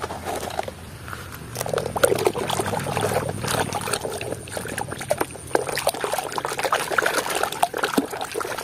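Muddy water sloshing and splashing in a plastic tub as a hand swishes a plastic toy truck around to wash it, with many small irregular splashes. The sloshing grows louder about a second and a half in.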